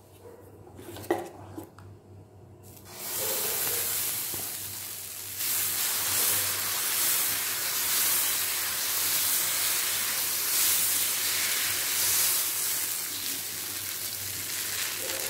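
Dosa batter sizzling on a hot flat griddle (tawa) as a ladle spreads it outward in circles. After a quiet start with a light knock about a second in, the sizzle begins about three seconds in and grows louder a couple of seconds later.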